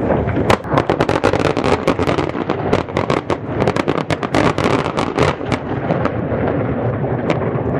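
Aerial fireworks going off in a dense run of sharp bangs and crackles, several a second, over a constant low rumble.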